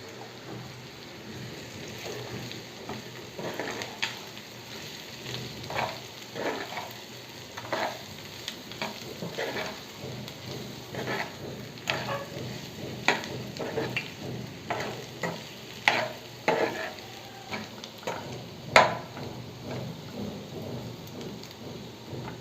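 A spoon stirring and scraping chicken gizzards, onions and spice powders around a pan, with irregular scrapes and taps about once a second over a steady frying sizzle. The masala is being mixed into the pieces.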